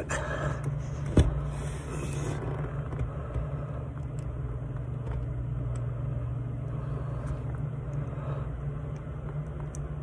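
A steady low mechanical hum throughout, with one sharp click about a second in and a few faint small clicks as spade connectors on a jumper wire are pushed onto the clutch safety switch wiring.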